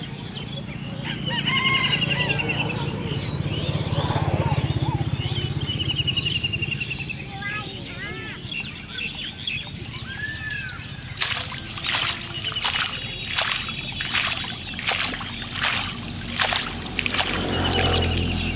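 Birds chirping and trilling, then from a little past halfway a hooked fish splashing at the pond surface, about two splashes a second, as it is brought in to the bank.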